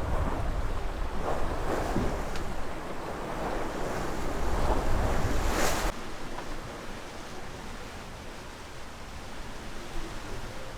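Wind and sea rushing past a sailing yacht in a squall, with wind buffeting the microphone; about six seconds in there is a brief hissing surge, then the sound drops suddenly to a quieter, steady wash of water.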